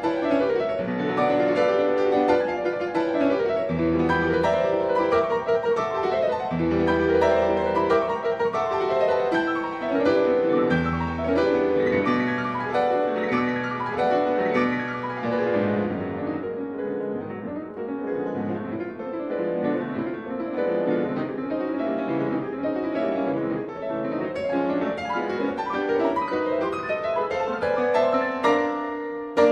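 Classical-style piano music playing as background, with a run of quick notes throughout.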